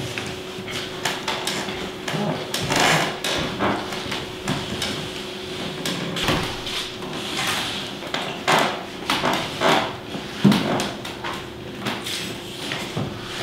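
Hands kneading a large mass of dough on a tabletop: irregular slaps, thumps and squelches as it is pressed and folded, the heaviest thump about ten seconds in. A steady faint hum runs underneath.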